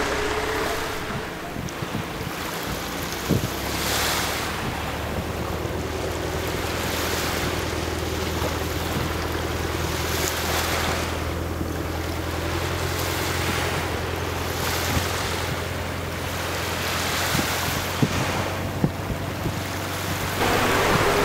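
Sea waves washing and surging every few seconds, over a steady low engine hum.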